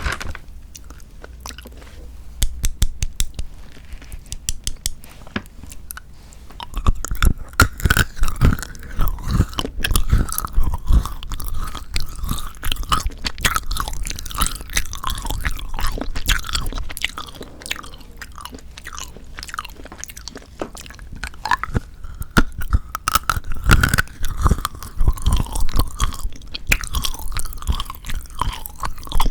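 Close-up chewing of chocolate, with crisp crunching and small mouth clicks. There are louder bouts of biting and crunching about a quarter of the way in and again past two-thirds, and softer chewing between them.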